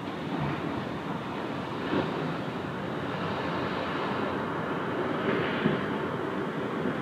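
Small ocean waves breaking and washing up a sandy beach: a steady rush of surf that swells about two seconds in and again a little after five seconds.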